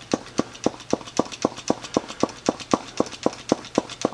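Pistol-grip hand vacuum pump being squeezed over and over, a sharp click about four times a second, pulling vacuum on a distributor's vacuum advance canister to test that it moves the breaker plate and holds vacuum.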